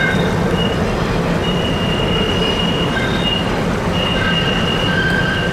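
Double-stack container cars of an intermodal freight train rolling across a curved steel trestle bridge: a steady rumble with wheel squeal from the curve in high, thin tones that come and go.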